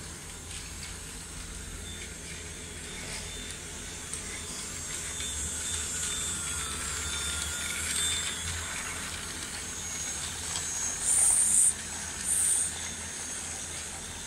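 Toy train set running, with a steady hiss and a faint high whine, then two short, loud hissing bursts about a second apart near the end.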